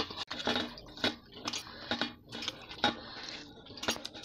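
Hands swishing cut banana slices around in a steel bowl of water, making irregular splashes, drips and light knocks of the pieces against the metal.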